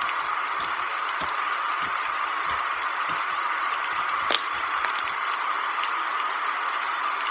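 Slime being squeezed and worked in the hands, a few soft squelches over a steady background hiss.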